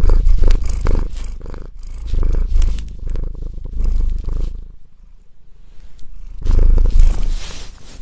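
Domestic cat purring loudly close to the microphone, a rapid low throbbing rhythm that fades for a second or so past the middle, then picks up again.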